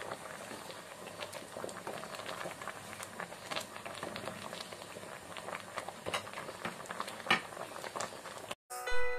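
Pot of thick okra soup boiling hard: a steady bubbling with many small pops. It cuts off near the end and piano music begins.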